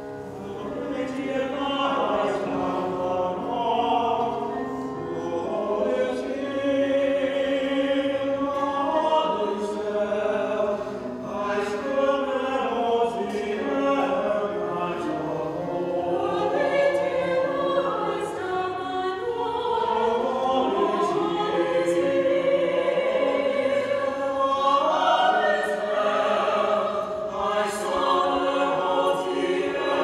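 Small mixed choir of men's and women's voices singing a choral piece in parts, the voices swelling in about a second in.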